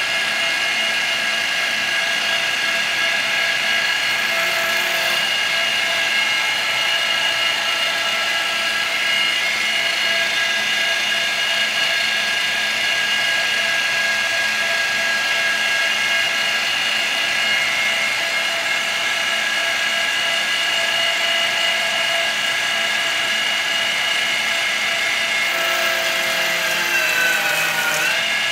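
TOS FN20 milling machine dry face-milling a small part with a face mill: a steady whine of several tones over a hiss. Near the end the whine dips in pitch.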